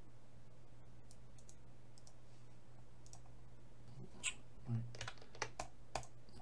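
Computer mouse and keyboard clicks: a few faint clicks, then a run of sharper key and button clicks in the second half, over a low steady hum.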